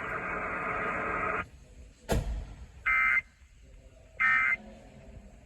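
Emergency Alert System end-of-message code: two short, identical buzzy digital data bursts about 1.3 seconds apart, the signal that closes a broadcast warning. Before them a steady radio hiss cuts off about a second and a half in, and a sharp click follows.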